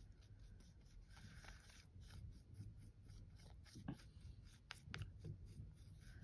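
Faint brushing of a paintbrush working paint, with a few soft clicks a little past the middle.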